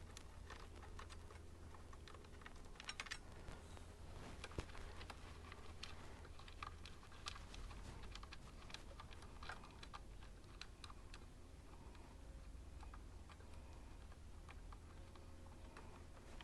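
Faint, irregular clicks and light metal taps of hand tools working bolts loose on a motorcycle's headlight bracket, over a low steady hum.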